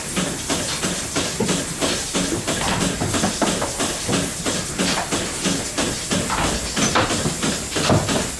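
Goat milking machine running: vacuum hiss with the pulsators clicking and hissing in a steady, even rhythm.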